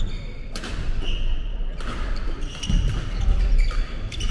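Badminton rally: rackets striking the shuttlecock with sharp cracks, about three times, amid sneakers squeaking and feet thudding on a wooden gym floor.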